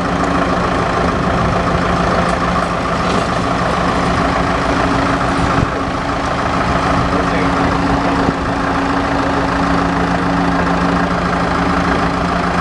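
Heavy engine idling steadily with a constant low drone.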